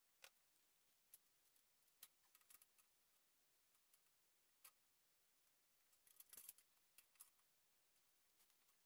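Near silence with faint, scattered clicks and light taps of metal parts being handled: a steel lever handle is screwed in and a knob tightened on a homemade drill jig.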